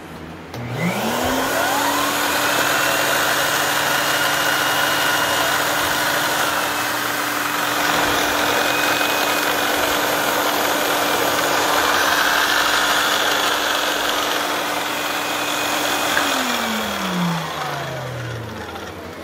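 Vacmaster vacuum cleaner switched on about half a second in, its motor whining up to speed. It runs steadily with a loud rush of suction, then is switched off about three seconds before the end and winds down with a falling whine.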